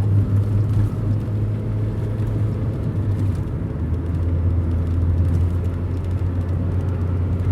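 Inside a moving car's cabin: a steady low engine drone over road rumble, with the drone's pitch shifting slightly about halfway through.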